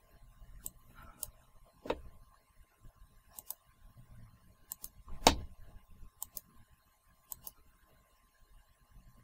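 Computer mouse clicks, several of them in quick pairs, as menus are opened. There are two louder knocks, the louder about five seconds in.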